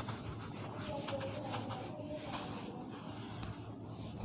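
Whiteboard eraser rubbing back and forth across a whiteboard: a quick run of short wiping strokes, then a few longer sweeps in the second half.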